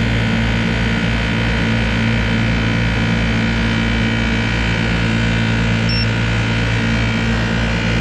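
Refrigeration vacuum pump running steadily, a low hum with an even throb. A short high beep about six seconds in.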